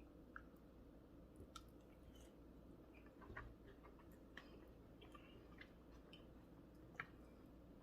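Faint chewing: scattered soft mouth clicks and smacks of someone eating, over a low steady room hum, with one sharper click about seven seconds in.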